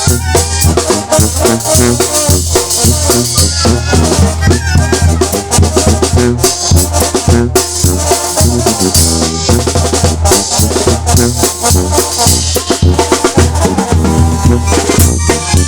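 Sinaloan banda (brass band) playing: brass over a low bass line, with drums and shaken percussion keeping a steady beat.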